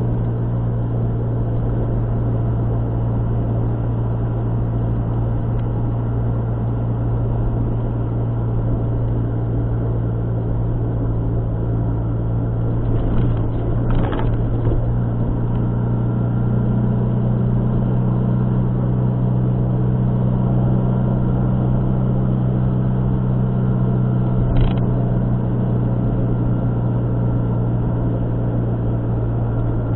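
Steady engine hum and road noise of a moving car, heard from inside the car. Two brief knocks come through, one about halfway and one about three-quarters of the way through.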